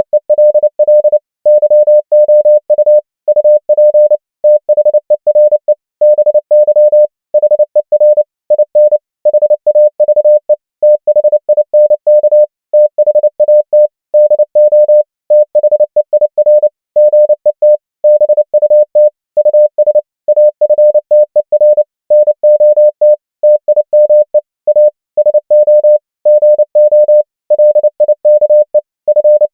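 Morse code at 29 words per minute, sent as a single pure mid-pitched beep keyed on and off in quick dots and dashes. The beeps come in groups that spell out common English words, with short pauses between the words.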